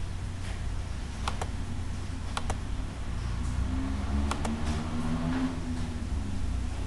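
Computer mouse clicking: three pairs of quick clicks, a second or two apart, over a steady low hum.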